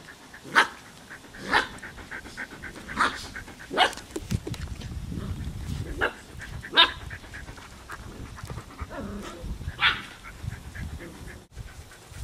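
Poodle puppies panting, with about seven short, sharp yips spread through.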